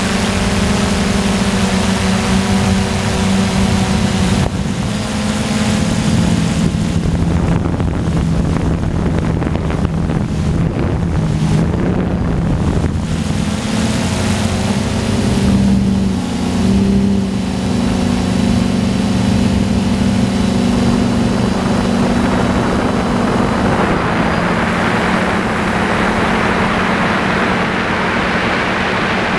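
DJI Flame Wheel F550 hexacopter's six motors and propellers buzzing steadily in flight, heard from its onboard camera, the pitch of the motor tones shifting up and down as their speeds adjust. A rushing noise grows louder over the last several seconds.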